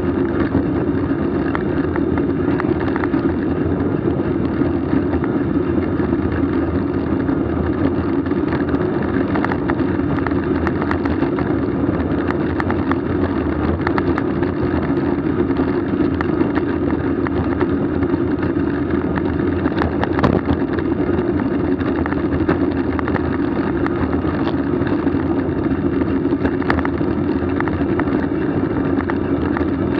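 Steady rushing noise of a moving ride picked up by the camera: wind and rolling rumble with a constant hum, and a few faint clicks.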